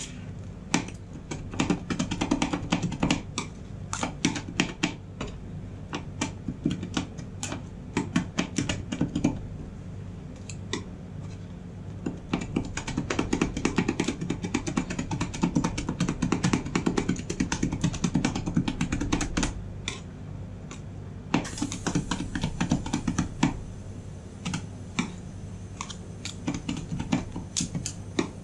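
Two metal spatulas chopping and scraping ice cream base on the steel cold plate of a rolled-ice-cream machine. They make fast clacking taps in bursts with short pauses, as the base is chopped and mixed while it freezes.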